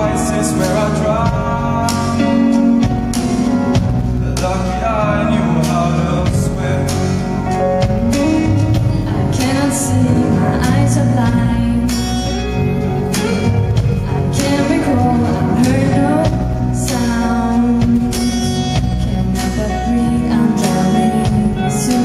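Live band performing a slow song: acoustic guitar and drum kit with cymbal strikes, under sung vocals.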